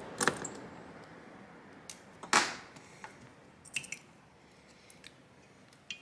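Scattered light clicks and taps of a small screwdriver and laptop cooling parts being handled on the bench, with one louder knock about two and a half seconds in, as the last screw comes out and the heat-pipe cooler assembly is worked loose.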